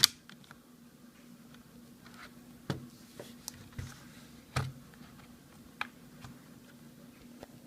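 Handling noise from an Asus Eee PC 4G netbook's plastic case: a sharp click right at the start, then scattered light knocks and ticks. A faint steady hum runs underneath.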